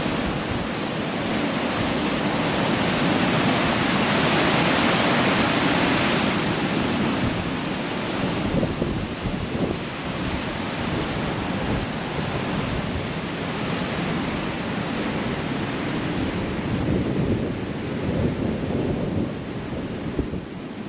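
Ocean surf washing onto a beach, a steady rush that swells louder for a few seconds near the start.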